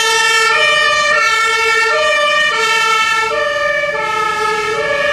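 German two-tone fire engine siren (Martinshorn) on a fire brigade tanker responding to a call. It alternates steadily between a low and a high note, each held about two thirds of a second.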